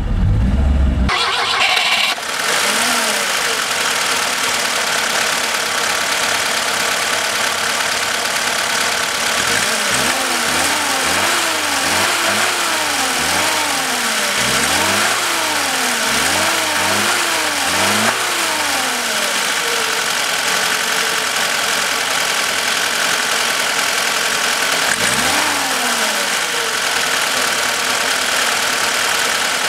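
A 1980 VAZ 2101's four-cylinder engine running with the bonnet open. It idles steadily, then is revved in a run of quick throttle blips about a third of the way in, each pitch rising and falling back, with one more blip near the end. A louder low rumble fills the first two seconds.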